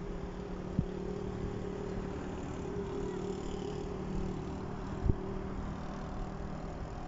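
Road traffic with a steady low machine hum, and two short dull knocks, one about a second in and a louder one about five seconds in.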